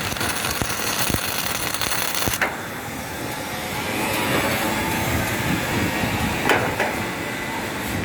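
Drawn-arc stud welding of shear studs on steel decking: a steady harsh hiss that ends in a sharp crack about two and a half seconds in, another sharp crack later, over continuous machine noise.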